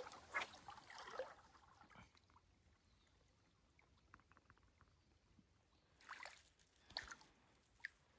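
Faint splashing and sloshing of shallow stream water, in short bursts during the first two seconds and again near the end, with a very quiet stretch between.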